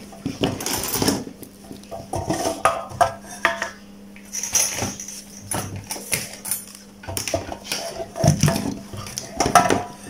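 Scattered clicks, knocks and clatter as the mains cable, plug and tools are handled and set down around an electric hot-plate element on a workbench, over a faint steady low hum.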